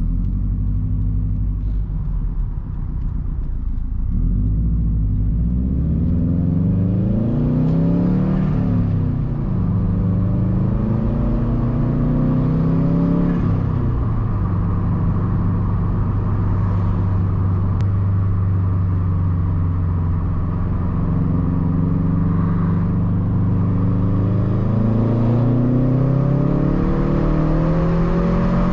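2013 Subaru STI's turbocharged flat-four running through a Tomei Expreme Ti exhaust while driving: the revs climb and fall back several times with gear changes, one drop sharp about halfway through, then hold steady before climbing again near the end.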